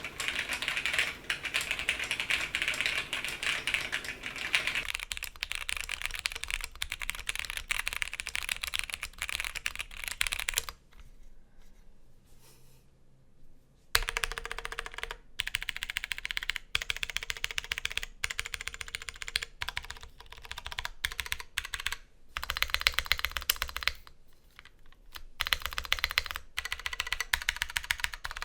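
Typing on an OTD 356CL custom mechanical keyboard with a polycarbonate half plate, tactile Clear switches stickered and fitted with OTD springs, and double-shot keycaps: a fast, steady run of key clicks and clacks. It pauses for about three seconds near the middle and briefly again near the end.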